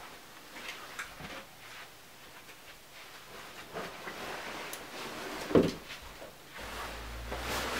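A front door being handled and opened, with handle and latch clicks and one loud knock of the door about five and a half seconds in. A low hum comes in near the end.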